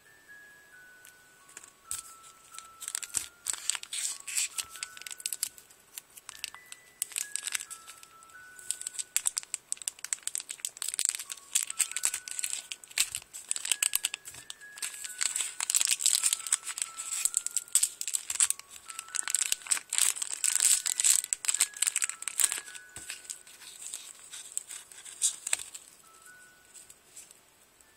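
Clear plastic bags crinkling as they are handled close to the microphone, the crackling loudest in the middle and dying down near the end. Under it, a soft background tune of single chiming notes.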